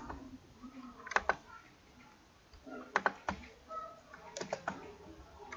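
Computer keyboard keys and mouse clicks in short groups of two to four strokes, with a quiet gap about two seconds in, as values are typed into a table's cells.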